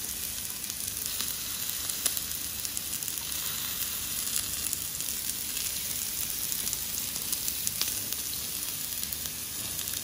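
Lamb steak and vegetables sizzling on a small ridged cast-iron grill pan: a steady hiss with scattered little pops and crackles of fat.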